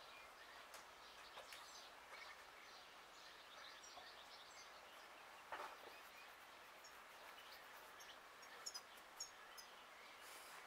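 Near silence: faint outdoor ambience with a few short, faint bird chirps in the second half, and one brief soft noise about five and a half seconds in.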